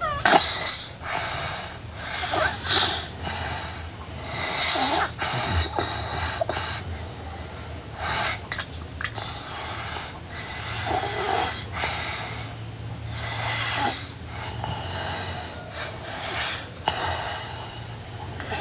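A sleeping girl snoring: noisy breaths that come irregularly, roughly one every one to three seconds.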